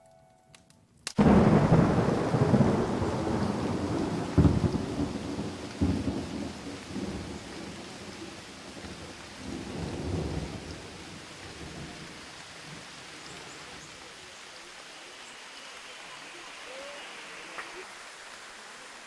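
Thunderstorm: a sudden loud thunderclap about a second in, rumbling on and fading over several seconds with a few more rolls, then steady rain.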